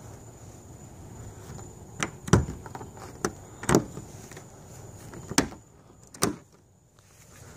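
A hand working the lid latches of a Rola Adventure hitch-mounted hard-shell cargo pod: a string of about six sharp clicks and knocks, the loudest about two seconds in.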